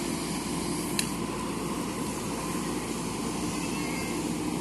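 JCB backhoe loader's diesel engine running steadily, with a single short sharp click about a second in.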